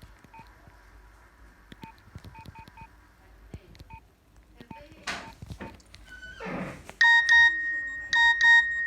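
Nokia 6230 mobile phone: short keypad beeps and clicks, then about seven seconds in a ringtone starts playing loudly, a high held note broken by short gaps.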